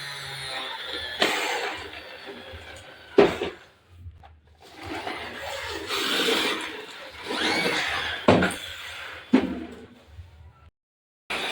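Plastic friction-powered toy tractor being pushed and run, a noisy whirring rumble broken by several sharp plastic knocks.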